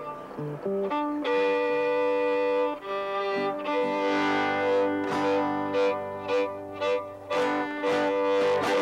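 A fiddle and a strummed guitar playing a jig in Greenlandic fiddle style, with long bowed notes early on and the guitar strums coming through more in the second half.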